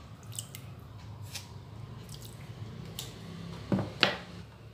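Cut potato cubes being stirred and rinsed in cold water in a glass bowl with a plastic spoon to wash off the starch: light wet swishing with scattered small clicks, and two sharper knocks near the end.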